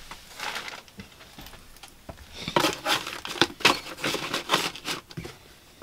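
Paper packaging crinkling and rustling as it is handled and gathered up, in irregular bursts of crackles that grow busier from about two seconds in.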